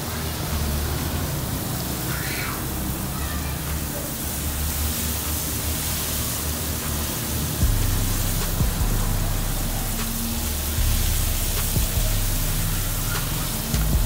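Batter-coated chicken wings deep-frying in woks of hot oil: a steady sizzling hiss from the bubbling oil, over background music.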